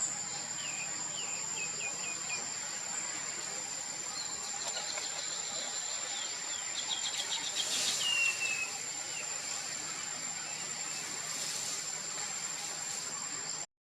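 Outdoor ambience dominated by a steady, high-pitched insect drone. A few short chirping calls come about a second in, and a quick series of chirps ending in a falling note comes around eight seconds in. The sound cuts out briefly at the very end.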